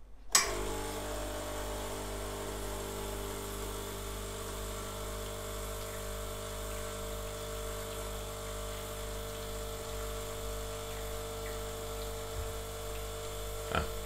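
La Spaziale Mini Vivaldi II espresso machine's vibratory pump humming steadily as it pushes water through the brew group during a test shot. It starts with a click just after a button press.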